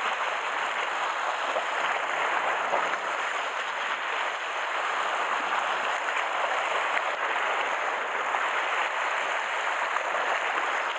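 Seawater washing over and around shore rocks: a steady, even rush of small waves breaking and draining.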